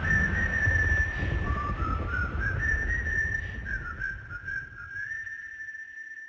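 A whistled melody stepping up and down between a few notes over a deep, rumbling bass, the song's outro fading out; the bass dies away shortly before the end, leaving the whistled tone.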